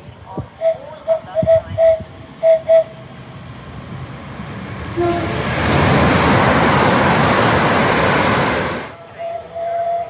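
A train passing through at speed: a rush of noise that builds up, sounds a brief horn note as it arrives, and cuts off suddenly about nine seconds in. Before it, a run of six short, sharp notes at one pitch.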